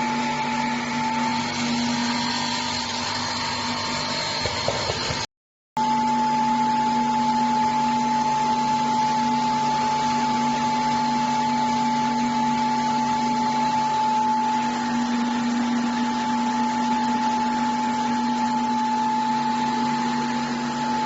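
Electric stone-wheel nut butter and sesame paste grinder running steadily, a motor hum with a high whine over grinding noise. It cuts out for about half a second about five seconds in, then carries on the same.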